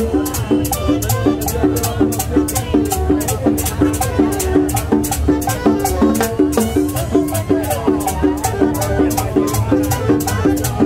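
Live Latin street band playing a dance groove: congas and drums, a metal shaker keeping a fast, even beat about four strokes a second, and a short melodic riff repeating over and over.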